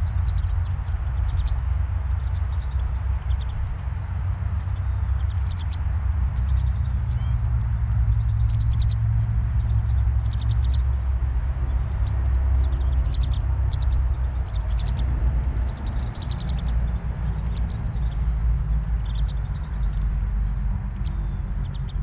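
A flock of pine siskins calling: many short, high chirps, one after another and often in quick clusters, over a steady low rumble.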